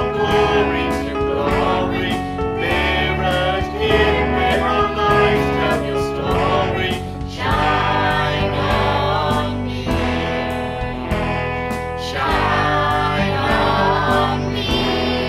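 Christian worship song: voices singing a melody over instrumental accompaniment.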